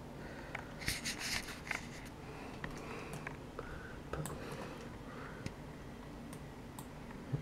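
Scattered faint clicks and short rustles over a low room hum: a computer mouse being clicked and handled, with a brief run of rustling about a second in.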